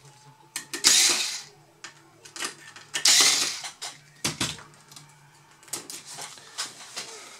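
Handheld electric screwdriver run in two short bursts a couple of seconds apart, undoing the screws that hold the cooling heatsink on a laptop motherboard. Small clicks and knocks of screws and the tool on the board come between the bursts.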